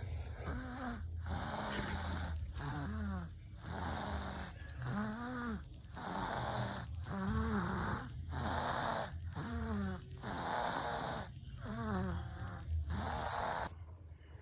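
Baby snoring: a steady run of rough, noisy breaths, roughly one every second or so, many with a short rise and fall in pitch. The breaths stop shortly before the end.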